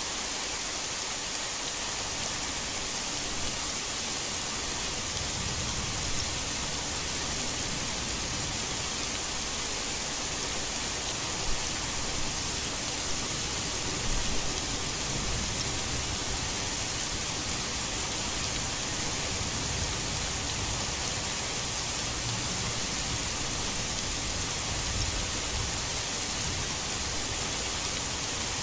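Steady heavy rain falling, a dense even hiss, with a few sharper drop hits about halfway through and low rumbles swelling and fading now and then.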